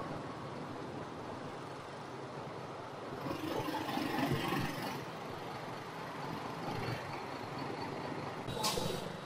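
Motorbike engines idling and running in a dense, crawling traffic jam of scooters and motorcycles, a steady low mixed drone. It swells louder for a couple of seconds about three seconds in, and a brief sharp sound cuts in near the end.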